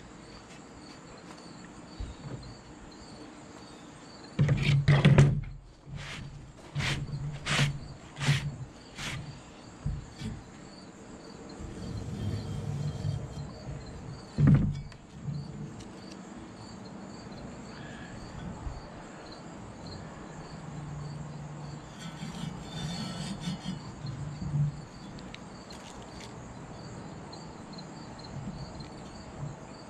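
A steel roofing spade on an oak handle knocking and clunking against a work table as it is handled. The heaviest thud comes about four and a half seconds in, followed by a quick run of sharp knocks and a few more clunks later. Crickets chirp steadily in the background.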